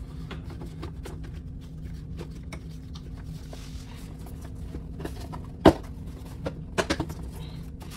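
Cardboard rear access cover of a refrigerator being flexed and pressed into place by hand: light scraping and tapping, a sharp knock a little past halfway, and a quick run of three knocks about a second later.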